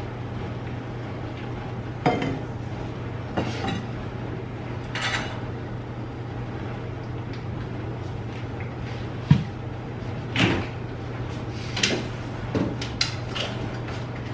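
Scattered knocks and clatter of household things being handled, over a steady low hum. The knocks come irregularly and grow more frequent toward the end, the sharpest about nine seconds in.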